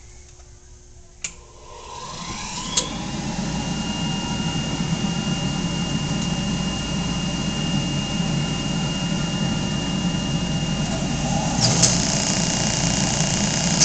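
Powermatic bandsaw with a 1.5-horsepower motor and flat belt drive switched on: a click about a second in, then the motor winds up to speed over about two seconds and runs steadily with a high whine.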